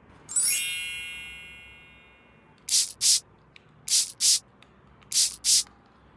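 A bright chime rings once and fades away over about two seconds. Then come three pairs of short, sharp hissing swishes, evenly spaced.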